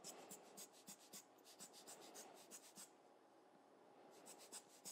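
Faint, quick scratchy ticks of a very fine brush dabbing and stroking on Yupo paper, several a second. They pause about three seconds in and start again near the end.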